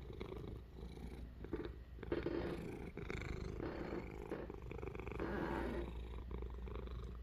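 Domestic cat purring steadily, a low continuous rumble that grows a little louder about two seconds in.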